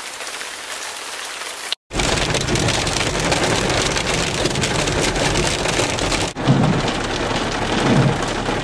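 Rain hitting a vehicle's roof and windshield, heard from inside as a steady, loud hiss, with a couple of low thumps near the end. The sound cuts out briefly about two seconds in.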